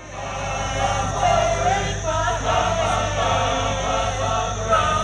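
A men's choir singing live on an outdoor stage, several voices together, over a steady low hum.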